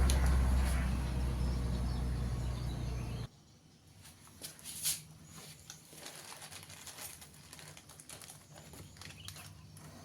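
A steady low machine hum that cuts off abruptly about three seconds in, followed by faint scattered clicks and taps.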